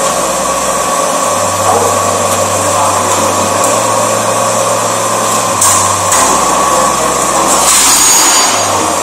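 Hydraulic pump motor of a QC12Y-4x2500 hydraulic plate shear running steadily with a constant hum, the machine switched on but not cutting. Brief clatters of a steel sheet being handled and slid onto the shear's table come near the middle and near the end.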